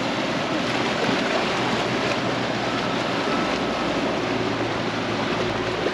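Motorboat's outboard engine running with a low steady hum as the boat passes close by, over a steady rush of moving water.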